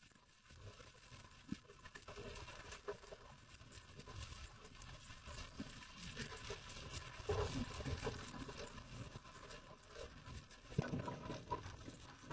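Underwater sound heard through a camera housing: a steady fine crackle of clicks on the reef over low water rush from finning, with a few louder knocks in the second half.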